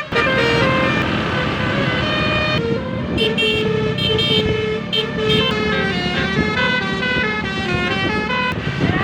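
Telolet basuri melody horn on a vehicle, playing a quick tune of short held notes that step up and down in pitch. A vehicle's running rumble sits underneath.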